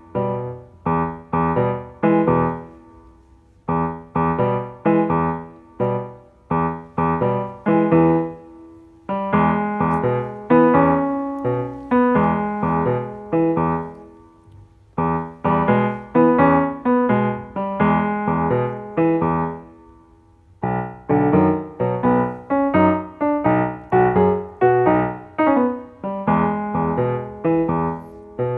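Background piano music: a light melody of struck notes, each dying away, broken by short pauses every few seconds.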